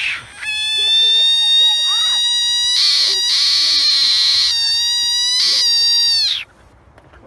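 A small, round frog calling: four long, high-pitched calls with short breaks between them, which stop suddenly about six seconds in.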